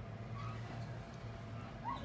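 Sphynx kittens mewing: a few short, faint high mews, with a louder one near the end, over a low steady hum.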